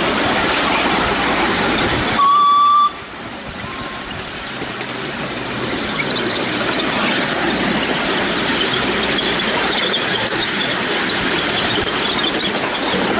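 Miniature steam locomotive's whistle gives one short blast about two seconds in, over the steady noise of the train running along the track.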